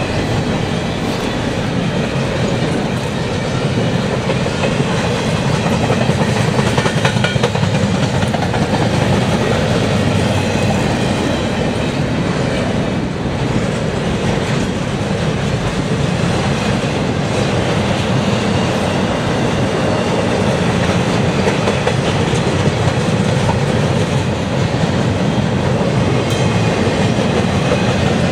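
Intermodal freight train's TTX double-stack well cars, mostly empty, rolling steadily past: the loud, continuous noise of steel wheels running on the rails.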